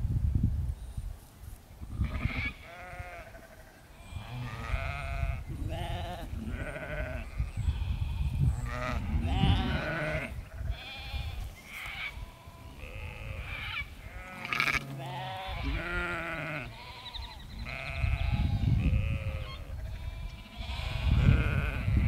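Sheep and lambs bleating over and over, many separate calls, some overlapping, several with a wavering quaver.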